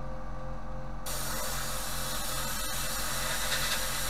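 Compressed-air spray gun hissing steadily as it sprays the underside of a car's floor panels, starting about a second in, over a steady machine hum.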